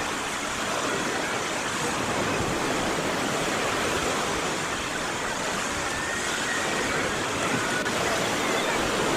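Sea of Azov surf: small waves breaking and washing ashore in a steady, continuous rush.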